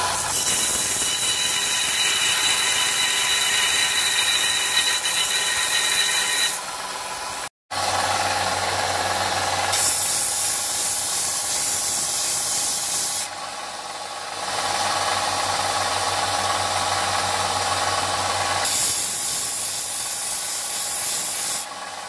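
Small 200-watt electric belt sander running while a piece of beef bone is ground flat on it. A steady motor hum carries three long stretches of harsh, hissing grinding as the bone is pressed to the abrasive, with a brief break about seven and a half seconds in.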